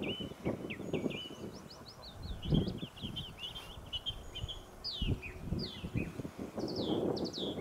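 Goslings peeping: a running stream of short, high peeps and downward-slurred whistles, with two brief low thumps.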